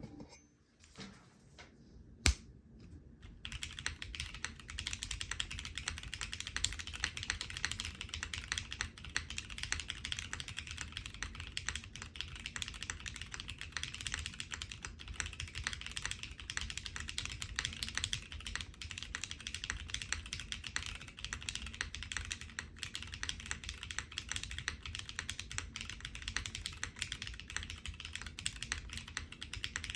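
Fast, continuous typing on a SINGAKBD Kohaku R2 custom mechanical keyboard with lubed, filmed Cherry MX Black linear switches on an ABS plate and GMK doubleshot ABS keycaps. A single sharp click comes about two seconds in, and steady typing starts about a second later.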